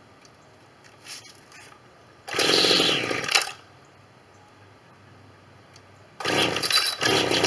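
Homelite curved-shaft string trimmer's two-stroke engine being pull-started from cold: it fires and runs for about a second before dying, then near the end catches again and keeps running.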